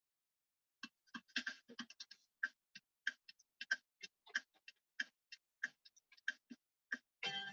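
A steady run of short, sharp ticks, about three a second, with a brief denser clatter near the end.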